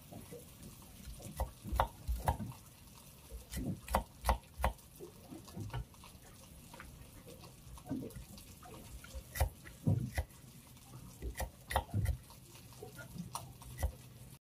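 Cleaver slicing shallots on a round wooden chopping block: irregular knocks of the blade striking the wood, some in quick pairs or short clusters.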